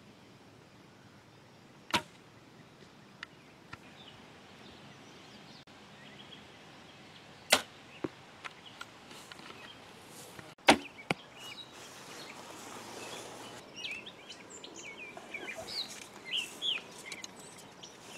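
Three traditional recurve bow shots, each a sharp snap of the released string or the arrow striking the foam 3D target, about 2, 7.5 and 11 seconds in, with smaller clicks after each. Birds chirp and brush rustles in the last few seconds.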